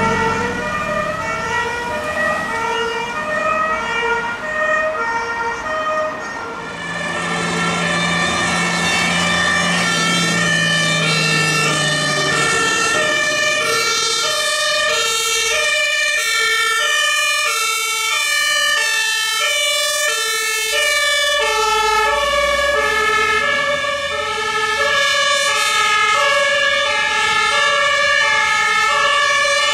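German two-tone emergency horns (Martinshorn) sounding, alternating steadily between a high and a low pitch. From about seven seconds in, a second horn joins out of step with the first, so several emergency vehicles are sounding at once.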